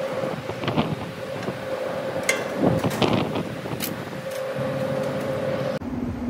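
Metallic clicks and knocks as a condenser fan blade is worked loose on its motor shaft, over a steady mechanical hum from rooftop HVAC equipment running. Near the end the hum changes suddenly to a lower tone.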